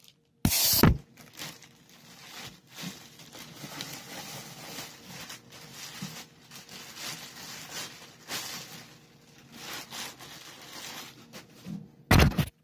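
Handling noise from the recording camera: a loud bump about half a second in and another near the end, with irregular rustling and scraping between them.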